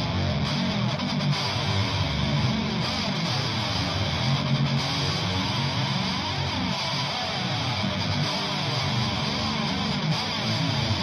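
Instrumental music played over the credits, led by strummed guitar with bass, at a steady level.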